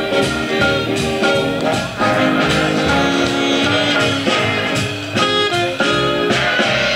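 Instrumental music with a steady beat and sustained melodic notes.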